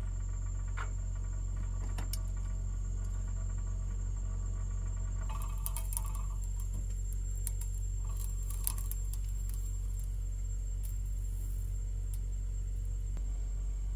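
Chikuwa fish-cake tubes being laid into a small frying pan with wooden chopsticks: a few light taps of the chopsticks on the pan, then a faint sizzle from about five seconds in. A steady low hum runs underneath.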